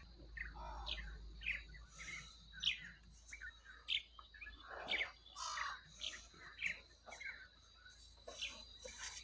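Birds chirping and calling, many short quick notes, several of them sweeping down in pitch, scattered throughout. A faint steady high tone runs underneath.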